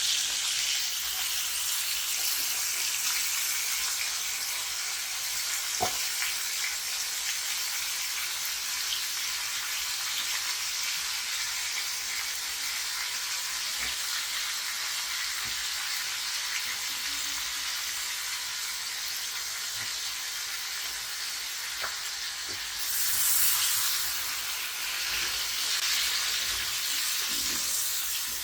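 Food frying in hot oil in a pan: a steady sizzle with a few light knocks, swelling louder for a moment about 23 seconds in.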